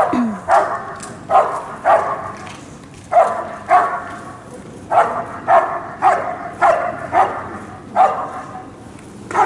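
German shepherd barking steadily and repeatedly at a motionless helper, about a dozen sharp barks at roughly two a second, often in pairs: the guarding bark of a protection trial.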